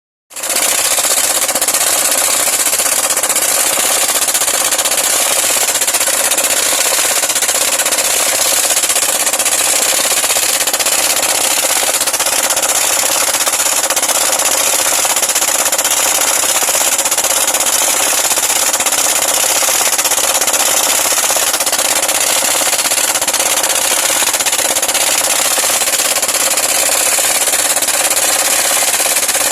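Gold-mining equipment running: a steady, loud, even noise with no beat or pitch, heaviest in the high range.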